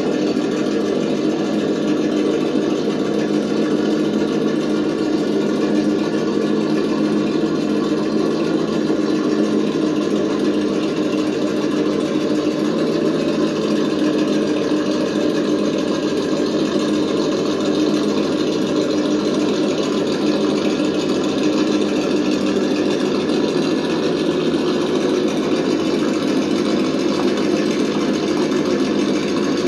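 A 1/10-scale RC crawler running as it drives and climbs over rocks: a steady mechanical drone with a level, pitched hum that holds unchanged throughout.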